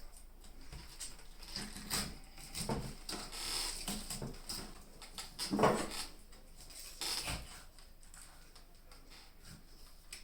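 Close-up eating sounds of pineapple eaten with a spoon: a handful of irregular wet clicks and crunches, the loudest a little past halfway.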